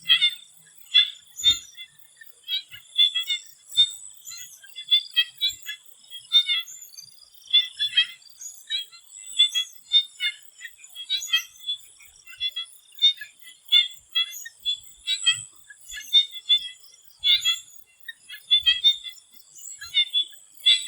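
Swamp frogs calling in short, sharp, high-pitched notes, a couple a second and overlapping irregularly as several frogs answer each other, over a faint steady high-pitched whine.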